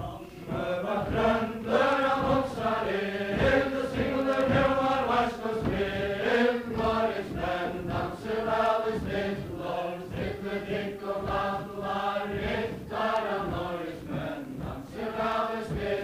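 Group voices singing an old Faroese song in unison, a chanted ballad melody that moves on steadily note by note.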